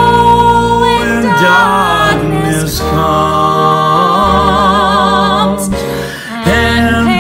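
A man and a woman singing a duet, holding long, wordless notes with vibrato. They pause briefly near the end, then come back in loudly.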